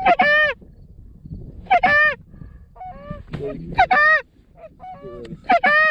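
Canada goose honks and clucks, loud and close, in four short bursts about two seconds apart, with quieter calls between them.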